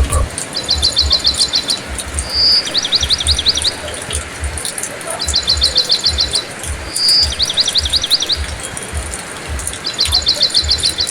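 A songbird sings the same rapid trill over and over, each phrase about a second long and repeated every two to three seconds, with a short single whistle between some of them. Under it is a steady rain hiss and irregular low thumps.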